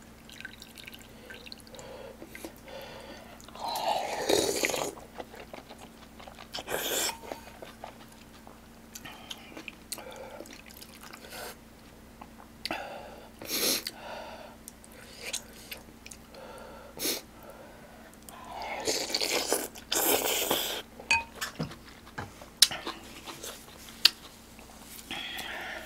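Close-miked eating of yukgaejang, spicy beef soup with glass noodles: soft chewing broken by a few short, louder slurps of soup and noodles.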